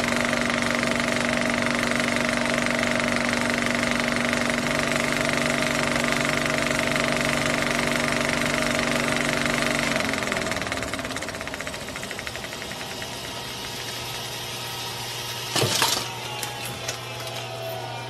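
A rapid mechanical clatter over a steady hum. The hum drops in pitch and fades about ten seconds in, and a short loud burst comes near the end.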